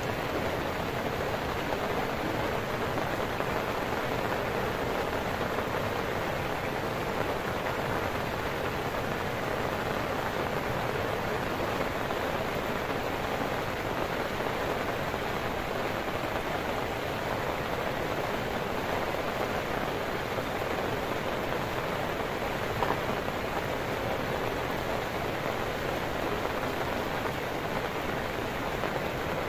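Steady rain mixed with the constant rush of a swollen, muddy river flowing fast close by.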